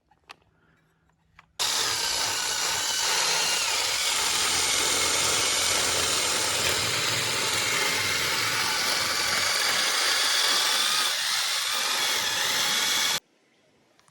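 Rebuilt Husqvarna 353 two-stroke chainsaw running, its high engine note wavering up and down. It cuts in about a second and a half in and cuts off suddenly near the end.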